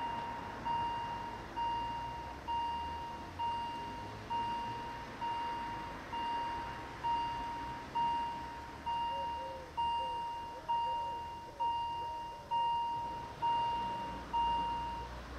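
Level crossing warning bell striking a single tone about once a second, each stroke fading before the next, as the barriers lower to close the crossing. It stops near the end.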